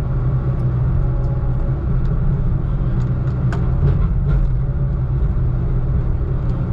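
Heavy logging-equipment diesel engine running steadily with a loud, low drone. A few faint clicks or knocks come in about halfway through.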